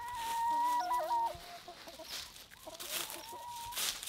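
Backyard hens calling and clucking: a long drawn-out call at the start and another about three seconds in, with shorter clucks between and a few short scratchy noises.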